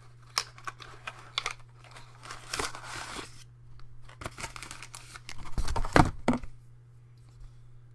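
Packaging being handled and unwrapped: rustling, crinkling and tearing with many small clicks, and a few louder knocks about six seconds in, then quiet.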